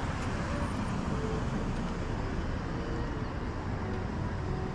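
Steady traffic noise with a low rumble, no single event standing out.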